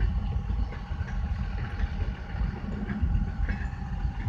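Long CSX freight train rolling past a level crossing, heard from inside a waiting car: a steady low rumble with a faint steady tone above it.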